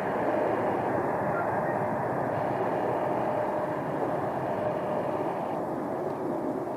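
Jet airliner engines running, a steady broad noise with a faint hum through it that eases off slightly near the end.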